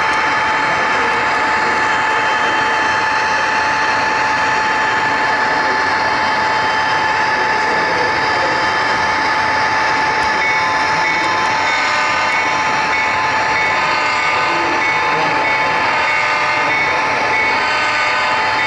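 HO scale model train running along the track, heard from a camera riding on it: a steady rolling noise with a constant whine. About halfway through, a pulsing higher tone joins in.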